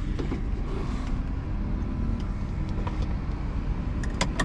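Portable generator running steadily as it powers the portable air conditioner cooling the truck's cab. A few light clicks come near the end.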